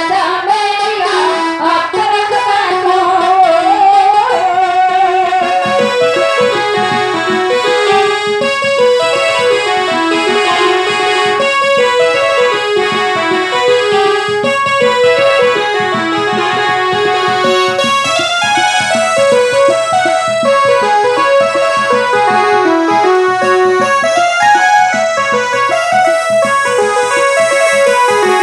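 Electronic keyboard playing a melody in an electric-piano voice, moving in clear stepped notes. A woman's singing trails off in the first few seconds.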